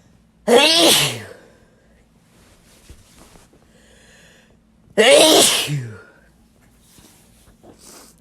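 A person sneezing twice, about four and a half seconds apart: wet sneezes, each a loud sudden burst with a voiced cry that falls in pitch.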